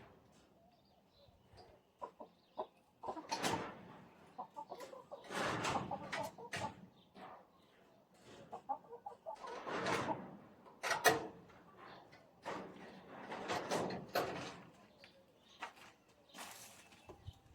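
Hens clucking, with repeated rustling swishes every second or two.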